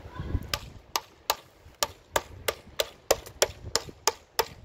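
A hammer cracking hazelnuts one after another as they sit in the holes of a cracking board: a quick run of sharp cracks, about three a second, starting about half a second in.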